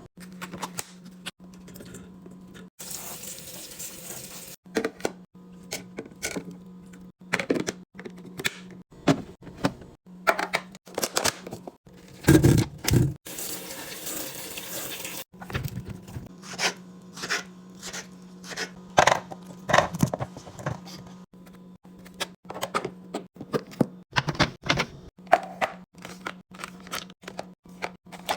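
Food containers and packaging being handled and put into a fridge: repeated clicks, knocks and clunks, with two stretches of hissing noise and a steady low hum underneath.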